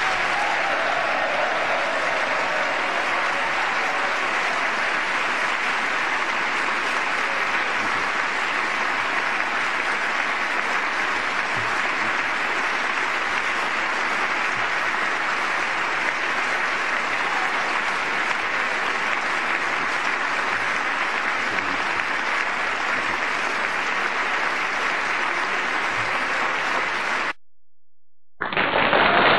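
Large audience applauding steadily and at length, cut off abruptly near the end; about a second later a different steady hiss starts.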